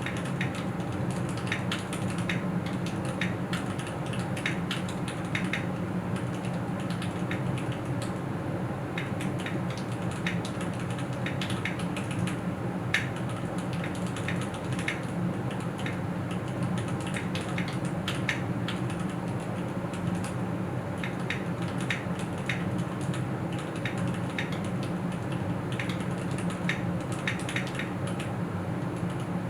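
Typing on a Keychron Q6 full-size aluminium mechanical keyboard: an unbroken run of key clicks, not too noisy, over a steady low hum.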